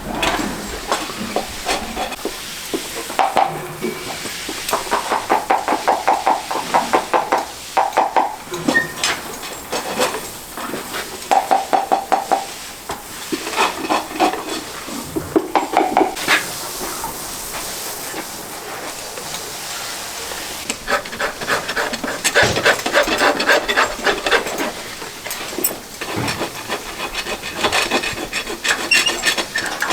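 Farrier's rasp scraping a horse's hoof in repeated rapid strokes, in uneven bursts with short pauses between them.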